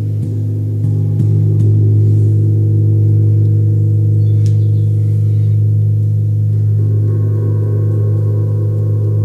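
A large tuned Paiste moon gong is played with a felt mallet. Several soft strokes in the first couple of seconds build a loud, deep sustained hum that swells and shimmers. Brighter, higher overtones bloom in about seven seconds in as the mallet works nearer the edge.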